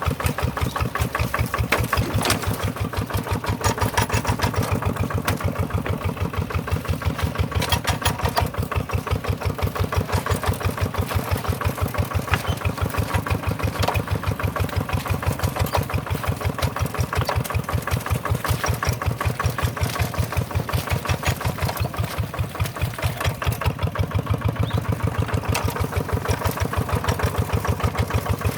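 Tractor engine running steadily with a fast, even chugging beat.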